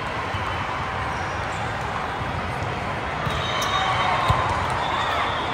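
Volleyball gym ambience: a steady hubbub of players and spectators, with scattered ball hits and one sharp ball thud about four seconds in.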